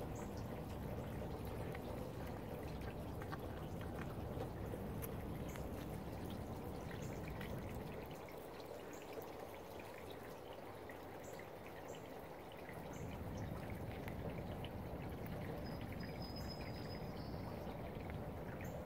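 White-tailed buck chewing apples close by: a steady wet chewing with many small crunches and clicks. Faint short high chirps sound now and then in the background.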